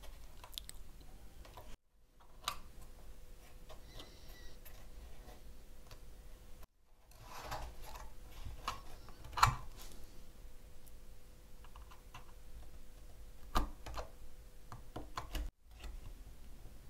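Scattered light clicks and taps of a small hand tool and fingers working on a wooden model ship's hull, with three brief drops to silence.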